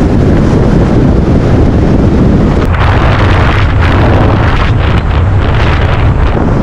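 Wind buffeting the microphone of a camera held up out of a moving car's open sunroof: a loud, steady low rumble with gusty rushes that grow stronger from about three seconds in.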